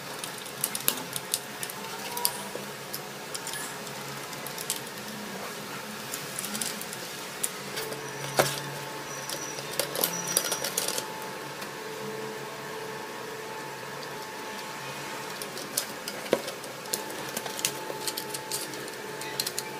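Hard plastic parts and small screws clicking and tapping as a plastic RC toy gun-turret housing is handled and fitted to its base plate by hand, with irregular sharp clicks over a steady background hum.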